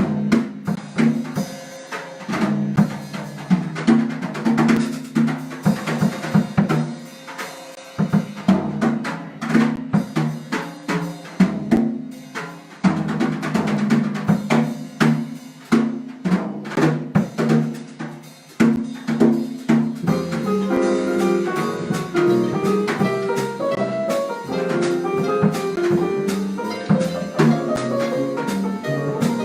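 Live jazz band playing, with the drum kit prominent: busy snare, kick and rim hits. About twenty seconds in, pitched melody notes come more to the fore over the drums.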